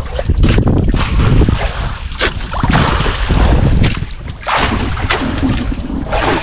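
Wind rumbling on the microphone over water sloshing against a small boat's hull, broken by several short bursts of splashing and handling noise. Near the end a squid is pulled splashing out of the water.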